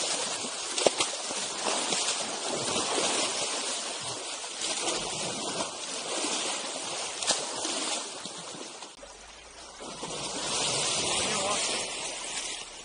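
Water splashing and running as a young Asian elephant wades and rolls in a shallow muddy river.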